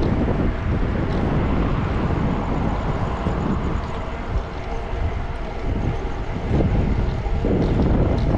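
Wind rumbling over the microphone of a camera on a bicycle rider moving at speed, a steady low rumble that gets a little louder about six and a half seconds in.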